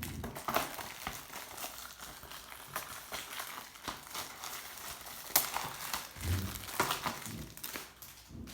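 Plastic shrink-wrap crinkling as a Blu-ray case is handled, with irregular crackles and clicks and one sharper click about five seconds in.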